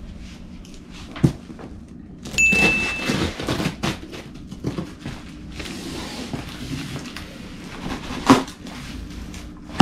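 Scissors cutting through the packing tape on a large cardboard box, with the cardboard scraping and rustling and a few sharp knocks as the box is handled. A brief high squeak comes about two and a half seconds in.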